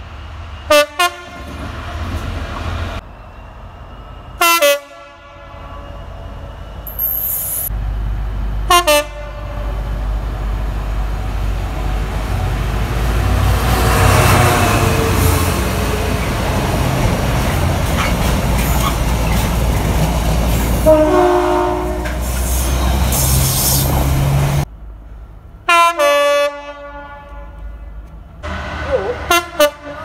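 Short train horn blasts, about seven in all, from several trains approaching station platforms. In the middle a diesel freight train passes close by with a loud, steady rumble and wheel noise for about fifteen seconds.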